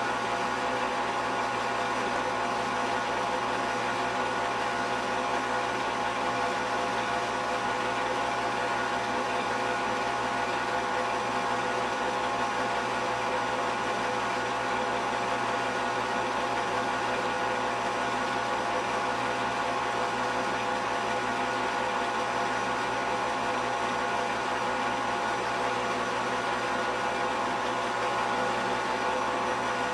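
Steady mechanical whir with a constant hum, holding an even level without change.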